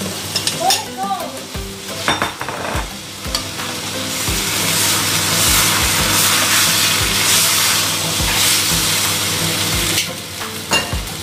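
Pancit bihon frying in a pan: rice noodles sizzling among sautéed vegetables and meat while being tossed with metal tongs, the sizzle growing louder about four seconds in. Occasional soft knocks from the tossing, over a steady low hum.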